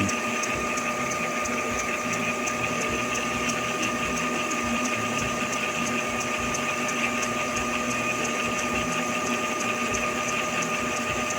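Epson L3150 inkjet printer running its ink-charge cycle: the motor driving the maintenance pump runs with a steady whine and a light, even ticking as it draws ink through the print head.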